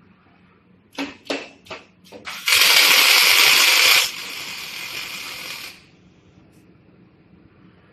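Scaffolding crossbar automatic welding machine cycling: a few sharp clicks, then a sudden loud hiss for about a second and a half that steps down to a quieter hiss and cuts off about two seconds later.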